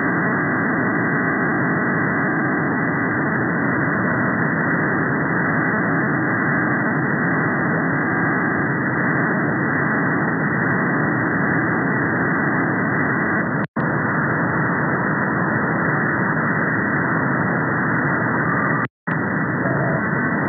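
Upper-sideband receiver audio of the 38.9 MHz Chinese meteor radar, whose entirely digital signal is heard as a steady, dull rushing noise with no tones in it. The noise cuts out briefly twice in the second half.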